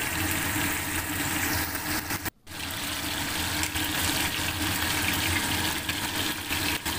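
Flour-coated chicken tails deep-frying in hot oil: a steady sizzling and bubbling, the flour coating keeping the oil from spattering. It breaks off for a moment about two and a half seconds in.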